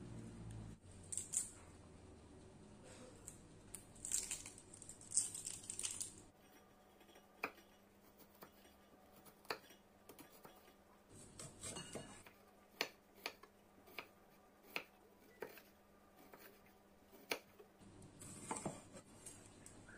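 Chef's knife cutting an onion on a wooden cutting board: the blade knocks against the board in separate strokes, which come closer together in the second half as the onion is sliced and diced.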